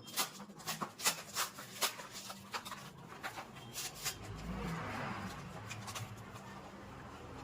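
Packaging being handled and opened by hand: a quick run of sharp clicks and taps, then a rustle from about four and a half seconds in.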